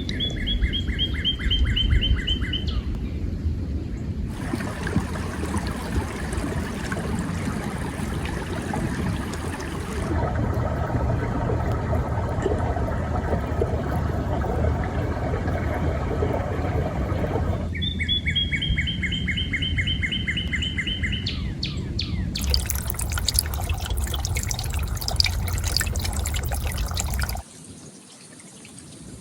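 Running water makes a steady rushing sound that shifts abruptly several times. A bird sings a fast trill of repeated whistled notes, falling slightly in pitch, twice: at the start and about eighteen seconds in.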